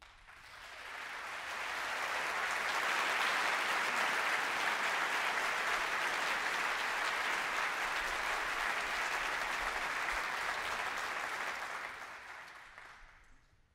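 Audience applauding, swelling over the first couple of seconds, holding steady, then fading away near the end.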